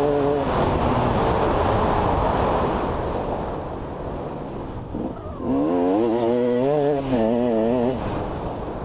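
Dirt bike engine revving up and down under throttle, mixed with rushing wind noise. It drops off for a moment about five seconds in, picks back up with quick rises and falls in pitch, then eases off near the end.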